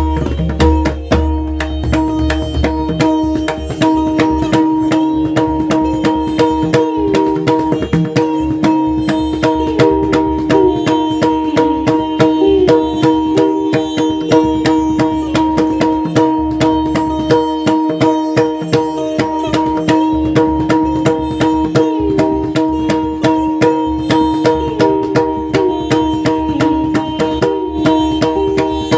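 Pakhwaj, a double-headed barrel drum, played solo with the hands in fast, dense strokes. It runs over a steady pitched accompaniment that holds one note and adds a short melodic turn every few seconds.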